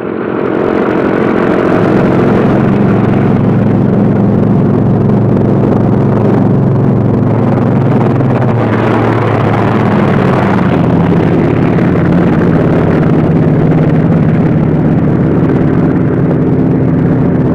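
Pair of P-47 Thunderbolts running at takeoff power, the drone of their Pratt & Whitney R-2800 radial engines swelling in over the first couple of seconds and then holding loud and steady, its pitch shifting slightly as the aircraft roll and climb out.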